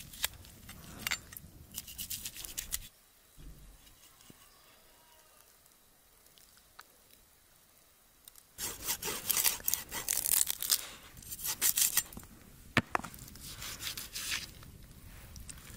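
Long knife sawing and scraping through a raw turkey's skin and leg joints on a metal tray, with a few sharp clicks. For several seconds in the middle it drops to near quiet.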